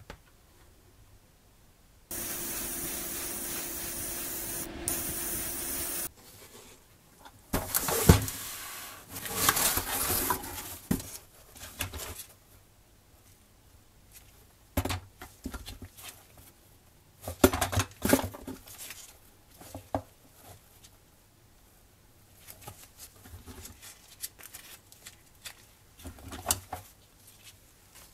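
A steady spraying hiss for about four seconds that stops suddenly, followed by scattered clicks, knocks and rubbing as parts are handled.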